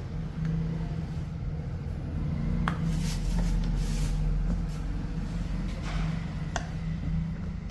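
Heat gun running with a steady motor hum as it warms paint protection film, loosening the film's adhesive so it sticks down. A few light clicks and a brief hiss come in the middle.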